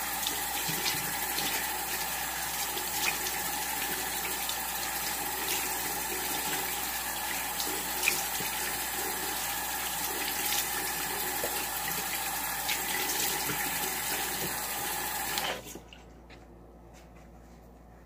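Bathroom sink faucet running steadily into the basin during face washing, then turned off abruptly near the end.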